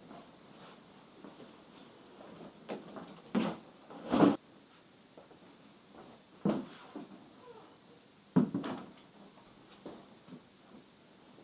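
Handling noise from a welded metal firewood rack being unwrapped from its cloth cover and shifted into place: scattered knocks and thuds with some cloth rustling. The loudest knocks come about four seconds in and again about eight seconds in.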